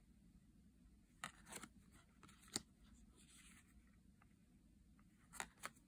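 Thick laminated tarot cards handled and laid one on another: a few soft taps and slides, two close together near the end, over faint room hiss.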